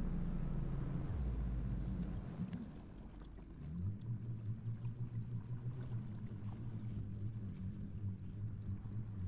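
Small boat's outboard motor running, easing back about two and a half seconds in and then holding a lower, steady note.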